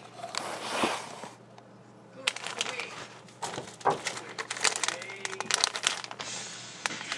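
Irregular crinkling and sharp clicks of something being handled close by, with a quieter pause about two seconds in.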